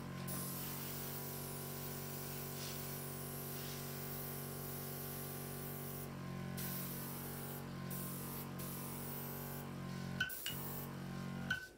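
Compressed air hissing from an airbrush run off an air compressor as it blows wet acrylic paint across a canvas. The hiss runs unbroken for about six seconds, then stops and restarts several times as the trigger is let off, over a steady low hum.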